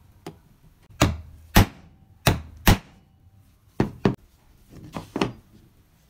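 A series of sharp knocks, mostly in pairs, as the meat grinder's crank handle parts (a wooden knob with a green sleeve on a metal rod) are tapped together against the wooden workbench, with a faint tap at the start.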